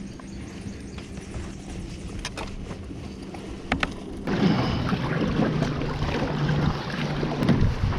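A motorboat engine hums steadily under wind and water noise, with a few light clicks early on. About four seconds in, the sound jumps suddenly louder to a rushing noise with a lower steady hum.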